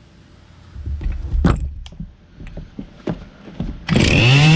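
A few knocks and clatters from the saw being handled, then the Husqvarna 257's 60cc two-stroke engine starts about four seconds in and revs up to a loud, steady high pitch. Its carburettor's low-speed screw is set one turn out.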